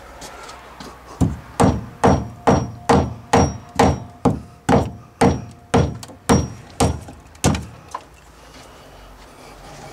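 A wooden-handled claw hammer strikes the workshop wall about fourteen times, roughly two blows a second, each with a short ring. It is knocking out the disc inside a ring of drilled holes to open a hole. The blows start about a second in and stop well before the end.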